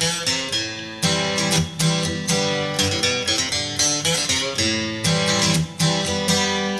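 Background music led by plucked guitar, with quick, regular note attacks.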